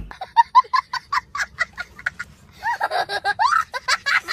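A young child laughing hard: first a quick run of short 'ha' bursts, about five a second, then higher, longer cackles that rise and fall in pitch.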